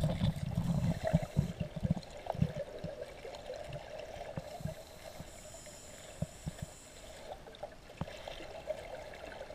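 Muffled underwater sound of scuba divers' exhaled bubbles gurgling up from their regulators, with scattered short low knocks that are heavier in the first two seconds.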